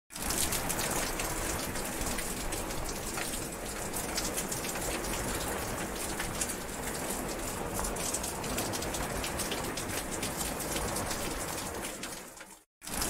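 Steady heavy rain falling on surfaces, with many separate drop hits over a dense hiss. The sound cuts out to silence for a split second near the end.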